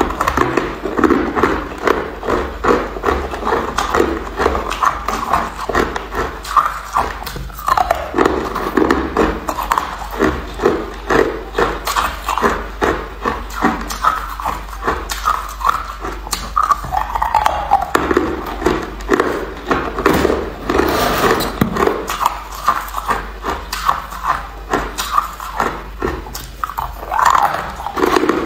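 Hard crushed ice being bitten and chewed close to the microphone: a rapid, steady run of crisp crunches, pulsing about twice a second with short pauses between mouthfuls.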